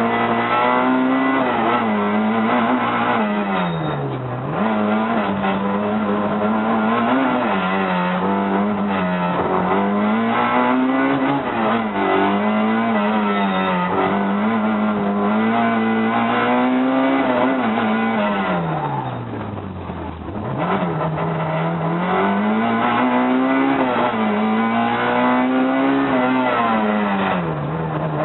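Citroën AX's engine heard from inside the cabin, revving up and down hard without a break as the car is driven through a slalom. Revs fall sharply twice, around four seconds in and again near twenty seconds, before climbing again.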